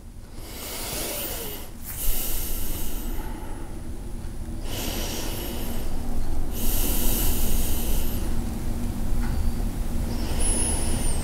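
A person's slow, audible breathing: soft hissing breaths in and out, each lasting one to two seconds with short pauses between.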